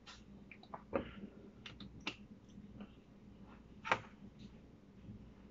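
A metal spoon clicking and scraping against a dish as food is scooped up, with a few short sharp clinks, the loudest about a second in and just before four seconds.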